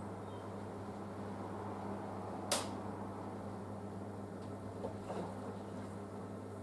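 Panasonic washing machine running its wool cycle: a steady low hum, with one sharp click about two and a half seconds in and a few softer clicks around five seconds.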